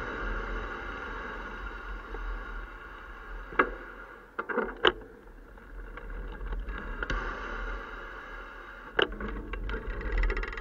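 Bicycle riding with a handlebar-mounted camera: steady wind and rolling noise, broken by a few sharp knocks and rattles, and a quick run of ticks near the end.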